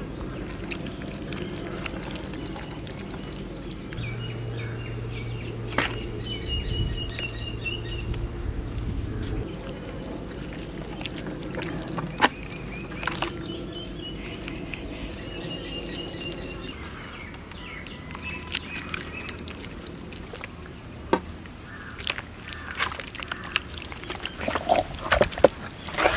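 Outdoor ambience: birds chirp now and then over a steady low hum, with scattered sharp knocks that come more often near the end.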